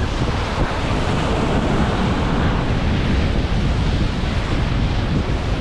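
Big ocean waves breaking in the surf, a steady rush of noise, with wind buffeting the microphone.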